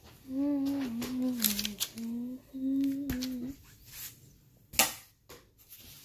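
A person humming a short tune of a few held and gliding notes for about three seconds, followed by a few light clicks and knocks, the loudest a sharp click about five seconds in.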